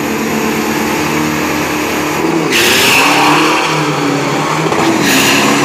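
Diesel drag-racing pickup truck's engine revving at the start line, then launching hard. It gets louder with a rushing blast about two and a half seconds in, with a second rush near the end.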